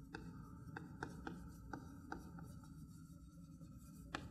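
Faint writing on a board: a few light, irregularly spaced taps and short strokes of the pen or chalk, over a steady low hum.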